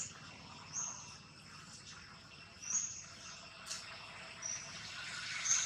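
Faint outdoor background with several short, high chirps spaced a second or two apart, and a single brief click about three and a half seconds in.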